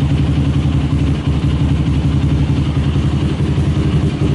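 Yamaha sport quad's engine idling steadily with an even, rapid pulse, running to power its newly fitted LED light bars.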